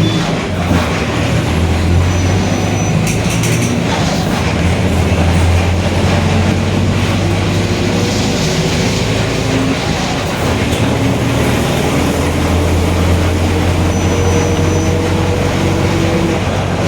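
Mercedes-Benz OF-1721 BlueTec 5 bus under way: steady diesel engine drone with the differential growling. A fainter whine climbs slowly in pitch over the second half.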